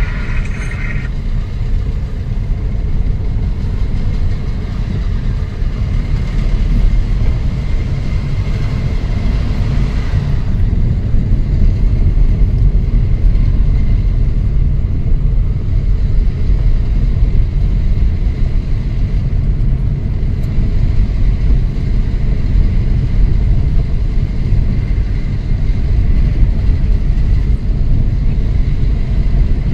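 A car driving, heard from inside the cabin: a steady low road-and-engine rumble.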